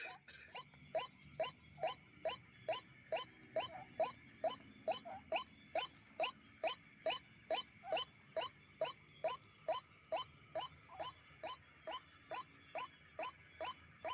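White-breasted waterhen calling: a long, even run of short rising notes, about three a second. It is the call played as a lure at night, which draws waterhens that take it for a mate or a rival.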